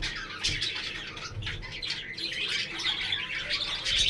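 Budgerigars chirping and chattering, many quick overlapping chirps.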